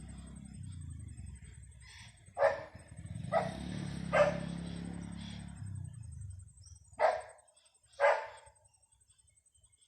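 A dog barking: five short barks, three in quick succession and then two more after a pause, over a low rumble that dies away partway through.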